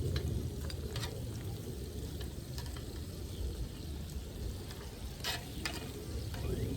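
Food frying in a pan, a steady low sizzle, with a few short clicks of a utensil being stirred against the pan: once near the start, once about a second in, and twice near the end.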